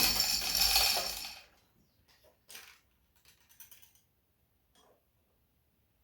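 Dense metallic rattling and jingling that stops about a second and a half in, followed by a few faint, scattered clicks and taps.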